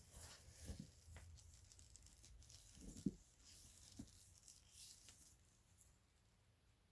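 Near silence with faint handling sounds: soft rustles and a few light knocks as a cable and microphone are handled, the loudest knock about three seconds in, growing quieter toward the end.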